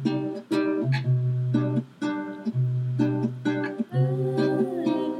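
Music: a guitar picking a repeated chord pattern over a steady bass, with a held, wavering note joining about four seconds in.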